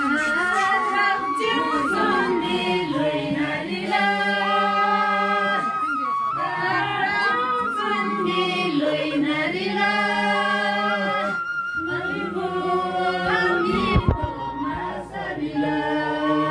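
A group of women singing a traditional Nyinba folk song together, unaccompanied, in long held notes broken into phrases. A single thump about fourteen seconds in.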